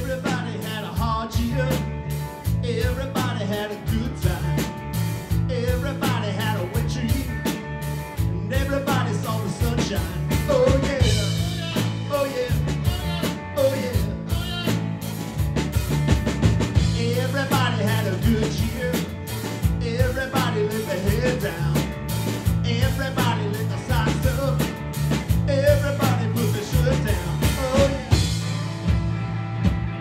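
Live rock band playing an instrumental passage: an electric guitar lead with bending notes over electric bass and a drum kit with a steady beat.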